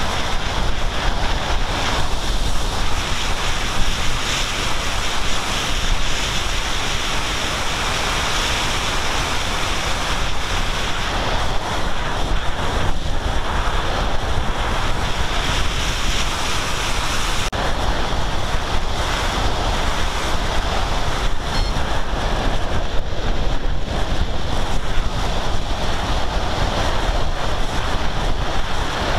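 Steady rushing wind noise from airflow buffeting the microphone of a camera aboard a small aircraft in flight.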